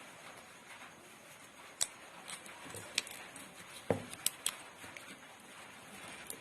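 Coil wire being laid into the stator slots of a grinder motor during rewinding: a few scattered light clicks and taps of the wire and tools over a faint hiss.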